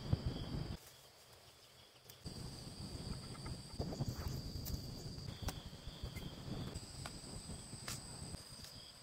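Insects chirring in a steady high drone over low rustling and a few scattered knocks, with a quieter stretch between about one and two seconds in.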